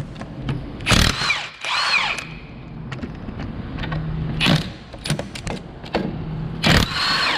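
Power impact wrench spinning off the 21 mm caliper bracket bolts on a Jeep Liberty's front brake, in about four short bursts whose motor whine rises and falls.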